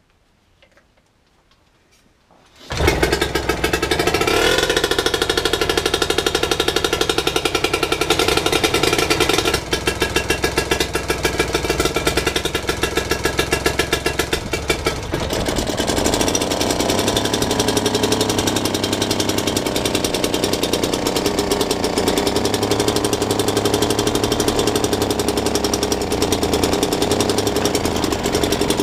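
British Seagull Silver Century outboard's single-cylinder two-stroke engine catching on a pull of the starter cord about three seconds in. It then runs on loudly and steadily: its first start after restoration, cold and on choke.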